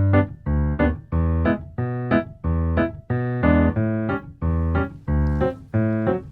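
Background music of short chords repeated in a steady rhythm, about one to two a second.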